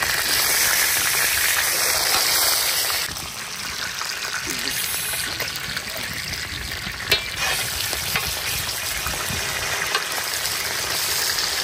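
Fish steaks sizzling in hot mustard oil on a large flat tawa as they are turned over with a metal spatula, with a steady hiss of frying. The hiss drops a little about three seconds in, and there is one sharp tap about seven seconds in.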